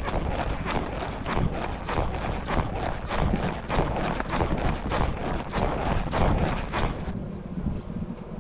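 Hoofbeats of a racehorse galloping on a dirt track, about three thuds a second, under heavy wind buffeting on the rider-mounted microphone. The hoofbeats stop about seven seconds in, leaving a steady wind rumble.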